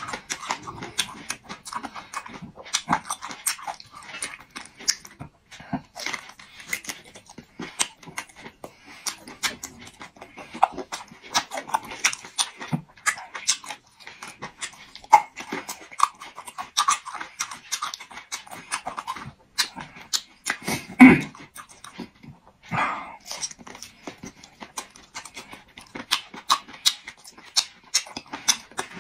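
Close-miked chewing and lip-smacking of cooked meat: a dense run of wet mouth clicks and smacks, with one louder smack about two-thirds of the way through.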